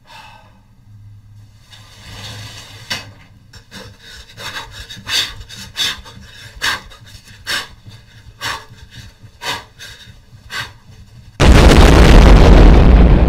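A run of sharp hits, about one a second, then a sudden loud explosion sound effect about eleven seconds in that carries on.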